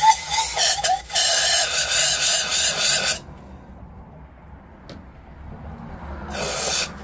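Can of compressed air spraying in hissing bursts into a drilled-out head bolt hole in an engine block, blowing out the metal shavings: a long spray broken briefly about a second in, stopping about three seconds in, then one short burst near the end.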